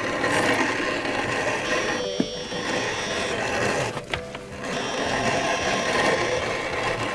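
Boot-sole stitching machine running, driving stitches through the leather sole of a boot with a fast, steady mechanical clatter that pauses briefly about two seconds and four seconds in.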